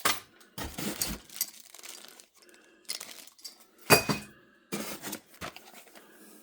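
Ceiling fan parts and hardware handled while being unpacked: a run of separate knocks and clinks of hard pieces. The loudest is a sharp clink about four seconds in that rings briefly.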